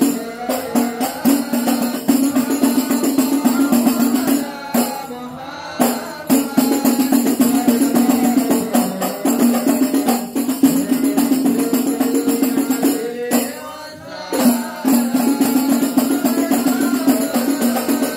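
Voices singing a devotional sholawat over a hand-beaten rebana frame drum in a steady rhythm. The singing pauses briefly twice between phrases.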